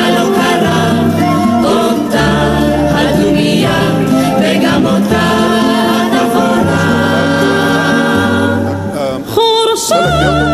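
Vocal music: voices singing together over held low notes that change every second or so. A single voice with a wide vibrato stands out near the end.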